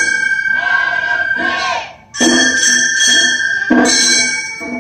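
Gion-bayashi festival music: small brass hand gongs (kane) struck in a ringing rhythm, with a transverse bamboo flute (fue) holding high notes over them. There is a short break about two seconds in.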